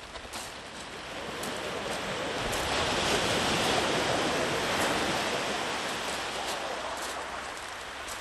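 Sea waves surging up a sandy beach. One long wash builds to a peak about halfway through and then fades back.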